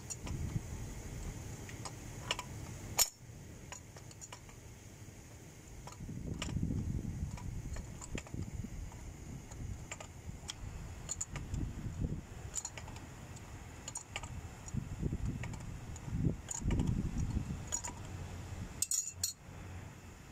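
Hands working a pressure pump controller and its threaded metal pipe fittings loose: scattered metallic clicks and clinks, a loud one about three seconds in and a close pair near the end, with stretches of low scraping and rubbing as the parts are twisted and shifted.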